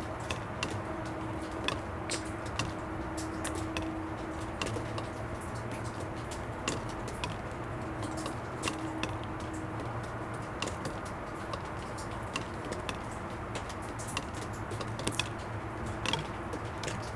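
Water drops falling onto plastic, each a sharp tick, a few a second at uneven intervals. Under them is a steady low rumble of distant traffic.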